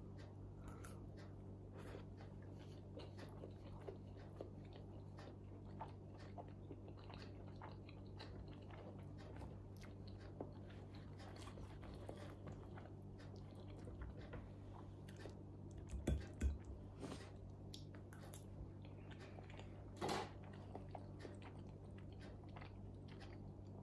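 Close-miked chewing of a mouthful of potato gratin and vegetables: soft, quiet mouth sounds with many small clicks over a faint steady hum. There are a couple of brief louder knocks, about 16 and 20 seconds in.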